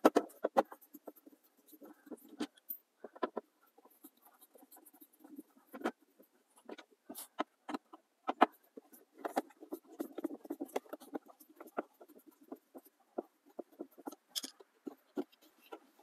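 Screwdriver backing small T20 Torx screws out of a plastic glove box latch, with irregular clicks and scrapes from the bit in the screw heads and the plastic being handled.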